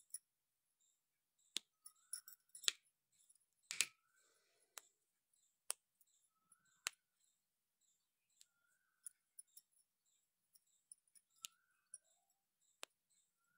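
Near silence, broken by scattered sharp clicks and taps from fingers and rings handled close to the phone. They come thickest between about two and four seconds in. A faint short bird chirp recurs every two to three seconds.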